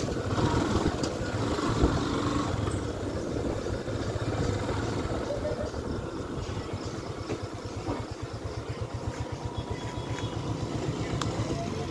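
A small vehicle engine running steadily as the vehicle drives along, with a rapid low chugging that grows clearer in the later seconds, over road noise.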